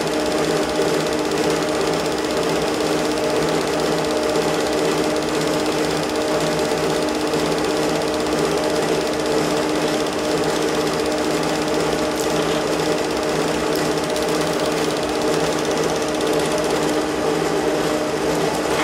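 Home movie projector running, a steady mechanical clatter with a constant hum.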